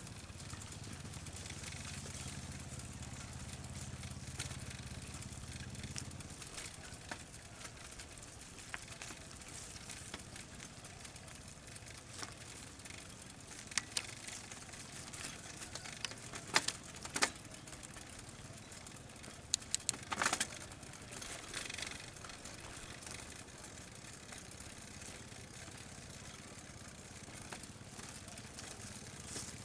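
Outdoor ambience after rain: a steady hiss with scattered clicks and taps, and a low hum that stops about six seconds in. A short cluster of louder clicks comes about two-thirds of the way through.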